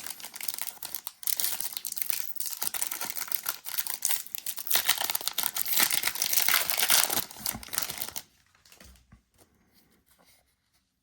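Crinkling and tearing of a trading card pack's foil wrapper as it is ripped open and handled, lasting about eight seconds before dying away to faint rustles.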